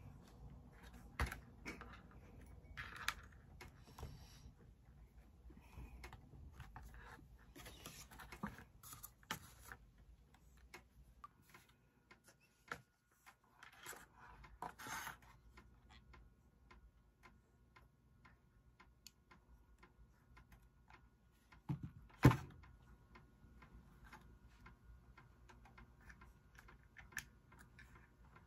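Light, scattered clicks and taps of small candle-making items being handled on a tabletop: glass jar, metal tins, paper cups and a glue gun. One louder knock comes about two-thirds of the way through.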